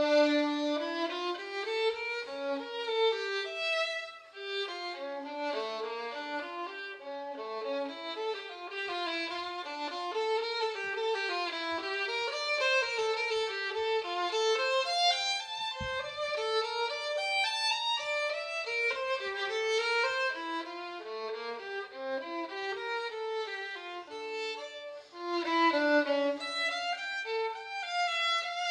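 Background music: a single instrumental melody line, its notes changing several times a second.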